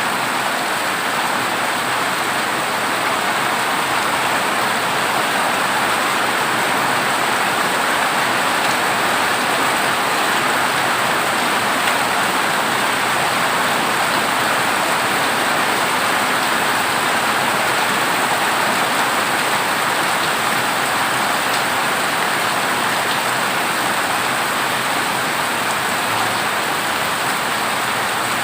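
Heavy rain drumming steadily on a corrugated zinc roof, an even unbroken hiss with no thunder.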